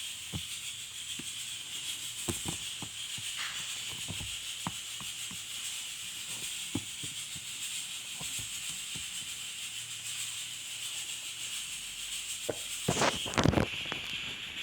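Scattered light clicks and taps of handling over a steady hiss, with a louder burst of rustling and clicking about thirteen seconds in: hands handling an iPhone 3GS box and packaging.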